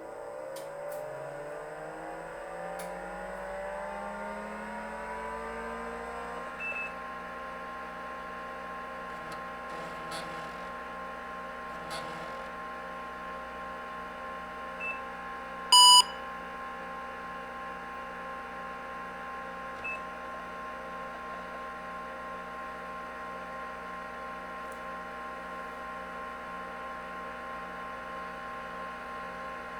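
IBM PC XT 286 starting up: its hard disk and cooling fan spin up in a rising whine over the first six seconds or so, then run on as a steady whine and hum with a few faint clicks. About sixteen seconds in, the PC speaker gives one short, loud beep, the single POST beep that signals the self-test has passed.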